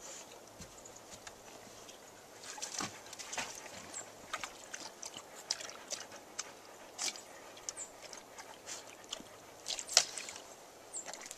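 A dog wading in a shallow water-filled concrete tub, with faint scattered splashes and sloshes of water and one sharper splash near the end.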